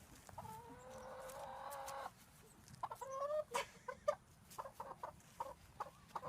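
Chicken calling: a long drawn-out call, a shorter call about three seconds in, then a run of short clucks.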